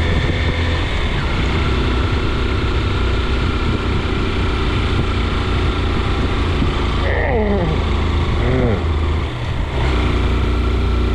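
Steady low rumble of a vehicle on the move, engine and road noise together. A short sliding, pitched sound comes about seven seconds in.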